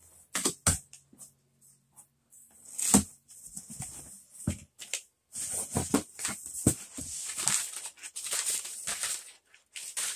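Cardboard box flaps knocked and scraped open, then several seconds of brown kraft packing paper crinkling as it is pulled out of the box, starting about five seconds in.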